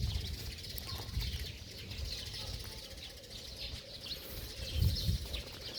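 Sparrows (Eurasian tree sparrows) chirping, many short overlapping calls, over a low rumble that swells briefly near the start and about five seconds in.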